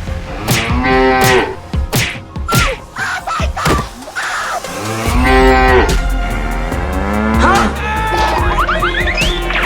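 Cattle mooing sound effects: several long moos that rise and fall in pitch, with sharp hits and whacks between them.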